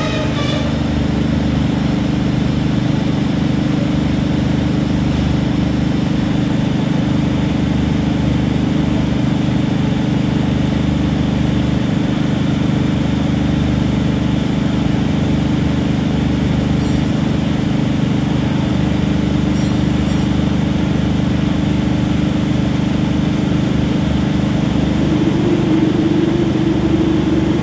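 A stationary diesel passenger train running with a steady low drone, growing slightly louder near the end.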